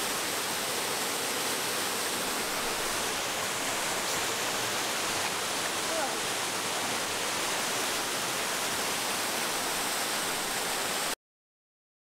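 Waterfall rushing, a steady, dense noise of falling water that cuts off suddenly near the end.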